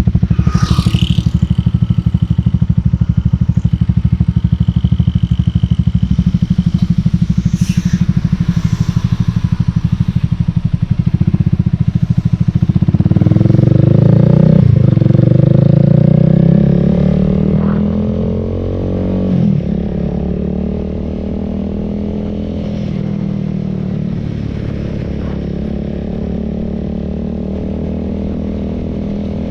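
Honda Rebel 300's single-cylinder engine running steadily. About halfway through it accelerates with rising revs and two upshifts, then settles into a quieter, steady cruise.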